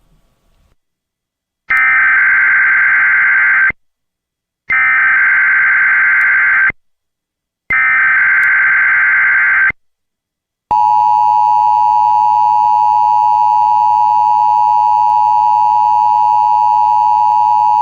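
Emergency Alert System encoder tones: three identical two-second bursts of SAME digital header data, each a second apart, then from about eleven seconds in the steady two-tone EAS attention signal, which runs on.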